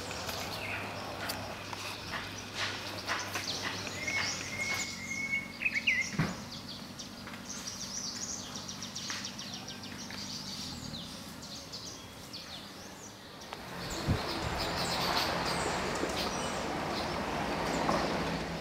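Outdoor garden ambience with birds calling: scattered short chirps and clicks, and one held whistle about four seconds in. A faint low hum runs underneath, and a hiss swells up from about two-thirds of the way through.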